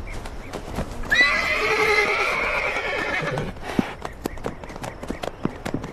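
A horse whinnies once, a loud, wavering call lasting about two and a half seconds and starting about a second in, over a scattered clatter of hooves.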